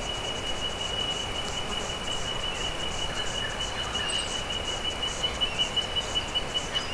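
Forest insect chorus: an insect trilling on one steady high note, with a few short bird chirps about halfway through.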